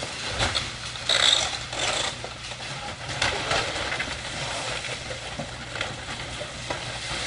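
Demolition machine's engine running steadily while it tears debris out of a house, with irregular clatters and knocks of breaking material, the loudest about a second in.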